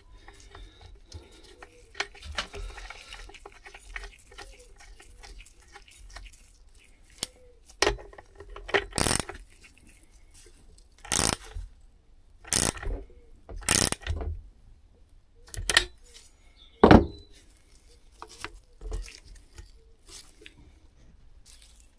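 Metal tools clinking and knocking on a brushcutter during a spark plug change, scattered small handling sounds with about five louder clunks in the second half.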